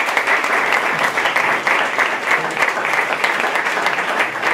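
A small audience applauding with many hands clapping at once, at the close of a talk.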